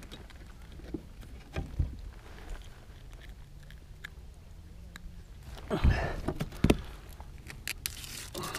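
Gear being handled in a plastic kayak: scattered light clicks and knocks, with two louder thumps about six and seven seconds in.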